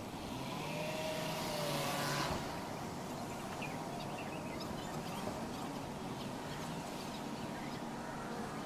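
Freight train wagons rolling past at a distance, a steady rumble with a louder swell about two seconds in and a few faint squeals.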